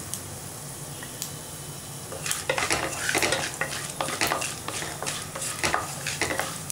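Chana dal, urad dal and mustard seeds frying in hot oil for a South Indian tempering, with a steady sizzle. From about two seconds in, the dals are stirred and the utensil scrapes and clicks against the pan repeatedly over the sizzle.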